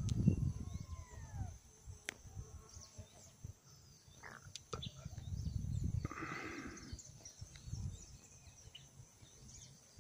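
Outdoor ambience of scattered bird chirps and calls over a steady high insect buzz. A couple of falling whistled notes come about a second in and a short rougher call near six seconds, with intermittent low rumbles on the microphone.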